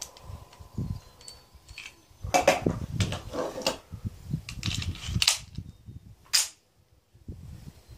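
Clatter and sharp metallic clicks from a semi-automatic pistol being reloaded with a magazine swap, with no shot fired. A run of quick clattering comes in the middle, then two single sharp clicks.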